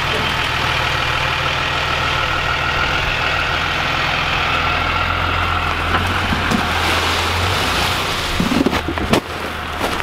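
Ram 3500 pickup truck's engine idling steadily. The hum fades about three quarters of the way in, and a few sharp knocks follow near the end.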